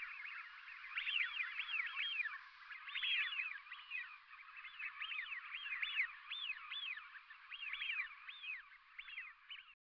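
A flock of birds calling together: a dense chorus of many overlapping short calls, each rising and then falling in pitch. It cuts off just before the end.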